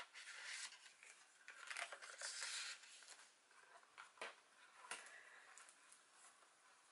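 Faint rustling of paper and card as the pages and a small booklet of a handmade scrapbook album are handled, with a couple of light taps about four and five seconds in.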